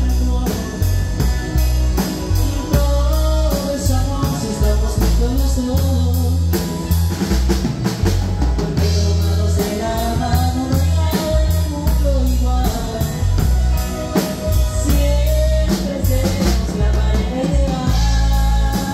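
Live band playing a song with a steady beat: electric guitar, bass guitar, drum kit, congas and timbales, and keyboard, with a woman and a man singing the melody.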